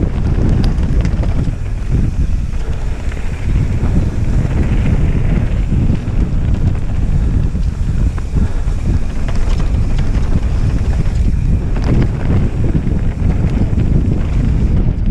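Wind rushing over the microphone of a mountain bike descending fast down a dirt forest trail, a loud steady rumble mixed with tyres running over dirt and stones. A few clicks and rattles from the bike come through.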